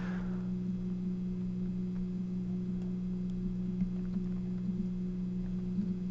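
Steady low electrical hum made of a few constant tones, with a few faint ticks.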